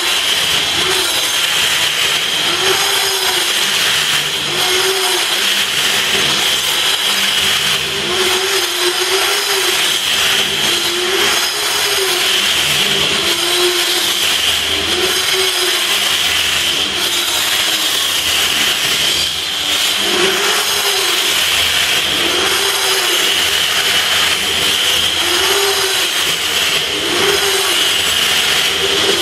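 Angle grinder cutting into a concrete wall under steady load: a continuous high whine and grinding, with the motor note sagging and recovering every second or two as the disc is pressed into the cut.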